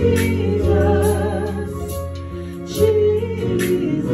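Worship song on a Yamaha Motif 8 synthesizer keyboard, sustained chords over a low bass, with women singing with vibrato at the microphones.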